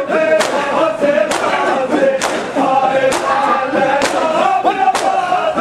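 Crowd of men chanting a noha in unison, with sharp collective chest-beating strokes of matam landing in time, a little under once a second.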